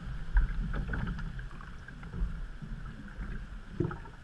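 Canoe paddling: a paddle dipping and splashing in the creek water, with low rumble and a few dull thumps.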